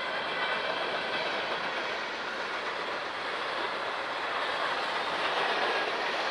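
Freight train cars rolling past, a steady noise of steel wheels running on the rails.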